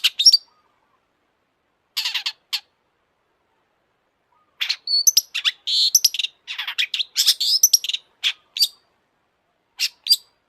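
Long-tailed shrike singing in bursts of rapid chirps and quick sweeping notes: a short phrase at the start, another about two seconds in, a long busy run from about four and a half to nine seconds, and a brief phrase near the end, with dead silence between phrases.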